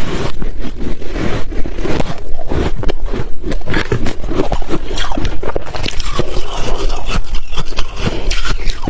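Close-miked chewing of hard refrozen ice: dense, irregular crunching and crackling that keeps going without a pause.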